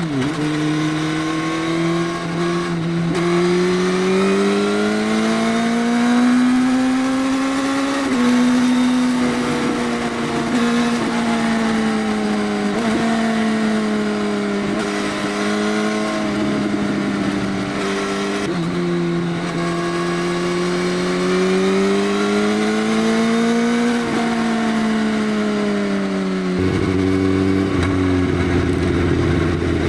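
Motorcycle engine through an aftermarket Arrow full exhaust system with the dB killer removed, running under way with its note rising and falling with speed. The pitch drops at two points, like gear changes. Near the end it turns to a lower, rougher, uneven sound.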